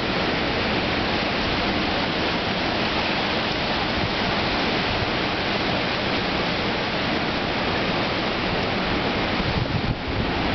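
Hurricane-force storm wind blowing hard through trees, a steady, loud rush of noise that barely changes, easing for a moment just before the end.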